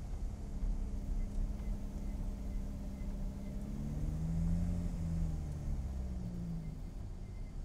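Lotus Elise Cup 250's supercharged 1.8-litre four-cylinder idling in neutral while the car coasts slowly, heard from inside the cabin. Its low hum rises a little in the middle and settles again.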